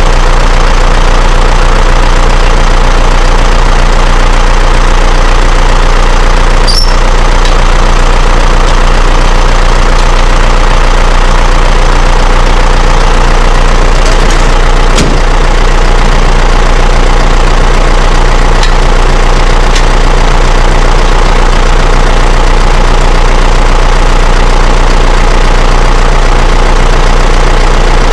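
John Deere 6110 tractor's diesel engine idling steadily, running after a new battery was fitted. A brief high squeak comes about seven seconds in and a short click about halfway through.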